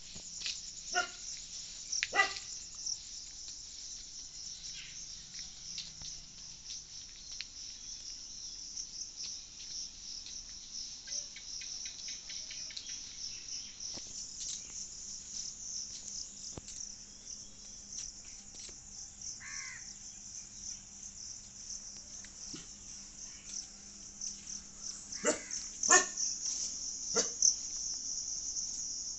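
A dog barking: two short barks in the first few seconds and a few more near the end. Under them runs a steady, high-pitched chorus of insects.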